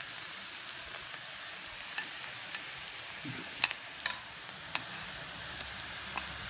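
Sliced onions sizzling in oil in a black iron kadai, a steady frying hiss, with a few sharp clicks about halfway through as a metal spatula works them.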